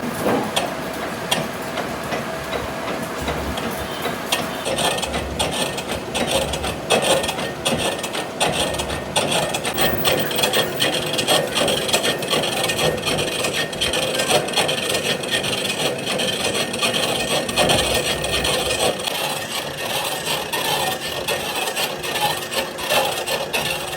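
Continuous rapid scraping of a hand tool working metal. It turns harsher and brighter about five seconds in.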